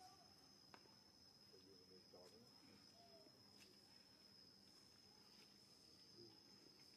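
Near silence with a faint, steady, high-pitched insect drone, typical of crickets or cicadas.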